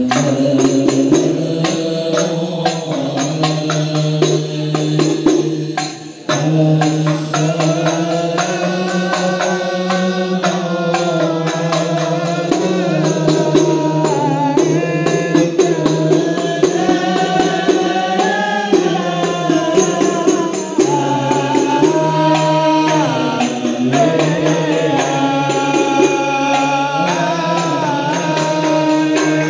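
Men singing habsy, Islamic devotional chanting in praise of the Prophet, accompanied by steady strokes of hand-held frame drums (rebana), with a brief drop about six seconds in.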